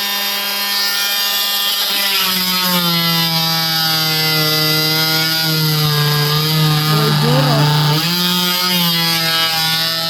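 Handheld power tool motor running and cutting a hinge recess into a door. Its pitch drops and the sound grows fuller as it bites in about two seconds in, then wavers under load.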